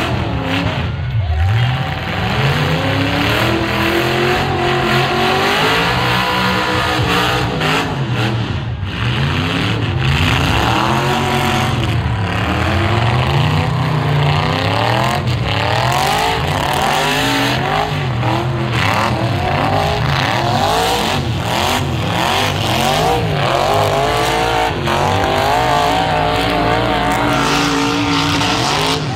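Engines of several demolition-derby half-ton pickup trucks revving up and down over one another, loud and continuous, with scattered sharp knocks.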